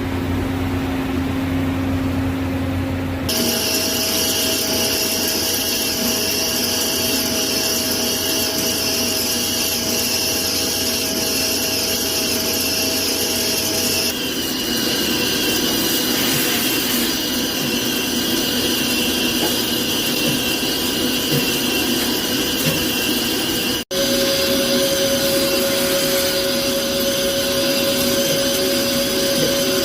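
CNC lathe running and cutting metal: a steady machine whine over a high hiss. The tones change abruptly about three, fourteen and twenty-four seconds in, with a momentary dropout at the last change.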